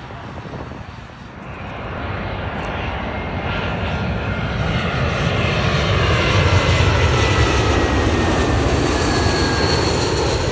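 Narrow-body twin-jet airliner passing low overhead on its landing approach. The jet engine noise builds over the first couple of seconds and stays loud, with whining tones that slide slowly down in pitch as it goes by.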